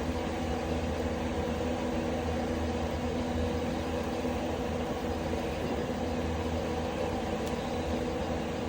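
Ceiling ventilation fan running with a steady loud drone and hum as it draws off wood smoke. The noise covers the sound of the burning firewood.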